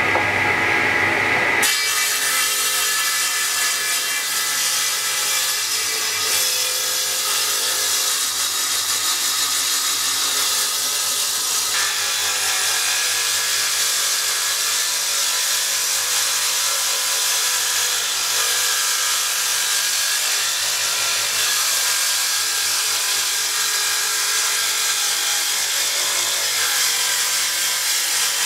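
Table saw ripping a block of wood, the blade cutting steadily and without a break as the wood is pushed through along the fence.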